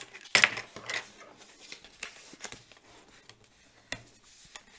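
Cardstock being handled, pressed and smoothed flat: scattered paper rustles and light taps, the sharpest about half a second in.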